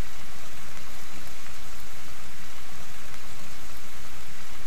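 Steady sizzling hiss from crab masala cooking in a covered aluminium kadai on a low flame, its water cooking down.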